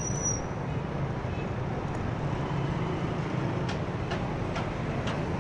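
Honda motorcycle running steadily on the move, heard from the rider's seat, with road and wind noise and surrounding city traffic. A few faint clicks come near the end.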